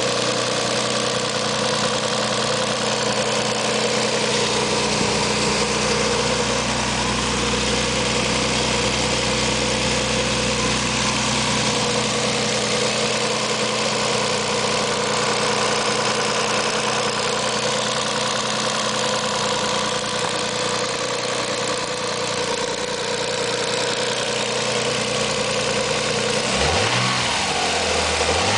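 1990 Nissan 300ZX's 3.0-litre V6 idling steadily, with a loud clicking that the owner takes for a bad lifter at the back of the passenger-side bank, and a slipping belt that squeals. Near the end the engine is revved briefly.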